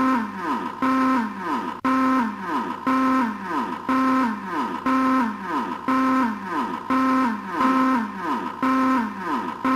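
Electronic siren sounding in a repeating cycle about once a second: each time a held tone that then drops sharply in pitch.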